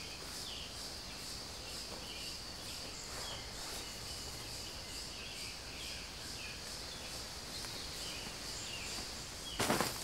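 Rainforest insects keep up a steady high drone with an even pulsing about twice a second, and short chirping calls come and go over it. Near the end there is a sudden loud rustling.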